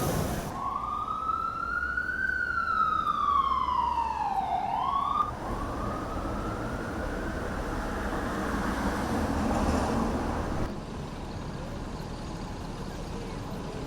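Emergency vehicle siren wailing: one slow sweep up and then down, starting to climb again about five seconds in, over city traffic noise. The traffic noise carries on and drops to a quieter level near the end.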